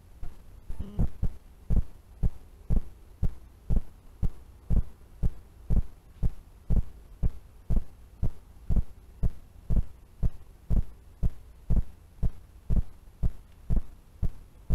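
Dull knocks at a very even pace, about two a second, each with a faint click on top.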